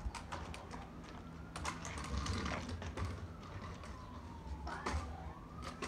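Faint siren wailing slowly, its pitch falling and then rising again near the end, over scattered sharp clicks and taps.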